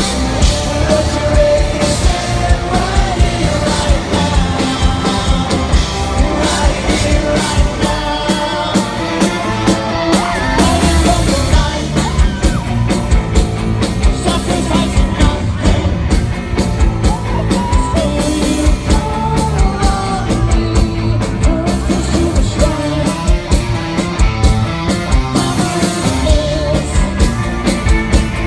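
Rock band playing live: electric guitars, bass guitar and drums with a sung lead vocal.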